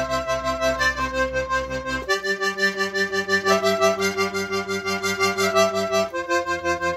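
Piano accordion playing a sustained melody over a steady pulsing bass-and-chord accompaniment. The harmony changes about two seconds in and again near the end.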